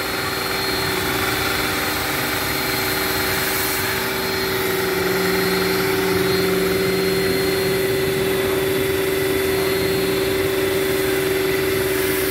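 A machine running steadily, a constant motor hum with one strong unchanging tone.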